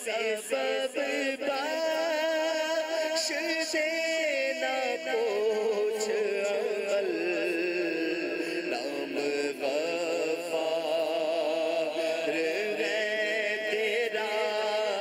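A man's voice chanting an Islamic supplication (dua) in long, wavering held notes, without instruments.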